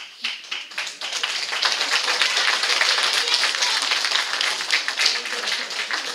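Theatre audience applauding. The clapping swells about a second in, holds, and eases off near the end.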